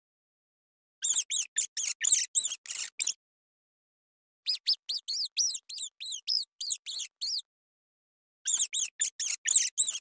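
Rat squeaking: three bouts of rapid, high-pitched squeaks, each squeak arching up and down in pitch, about four or five a second, with short silent pauses between bouts.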